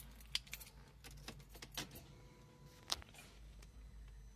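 A few faint, scattered clicks and light rattles from handling inside a car cabin, the sharpest about three seconds in, over a low steady hum.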